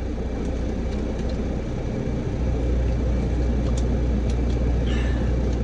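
Semi truck's Caterpillar 3406B inline-six diesel running, heard from inside the cab as a steady low rumble that grows a little louder about two seconds in.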